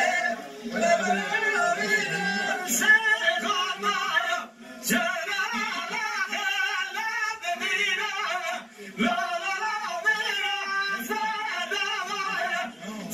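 Men singing an old Kurdish halay song together, in long sung phrases broken by short pauses for breath.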